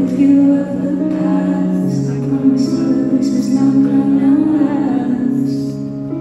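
Live concert music: a female singer singing into a microphone over sustained backing chords, which change about two seconds in and again about a second later.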